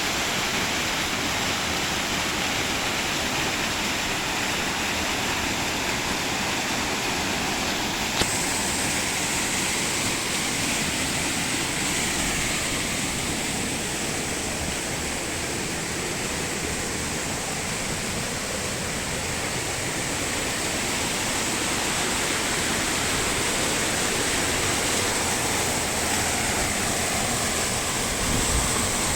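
Waterfall on a mountain stream: water pouring and splashing steadily, with one brief click about eight seconds in.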